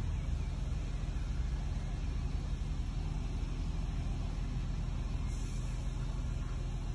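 Large diesel engine running steadily with a low rumble, as from a mobile crane at work, and a short faint hiss about five seconds in.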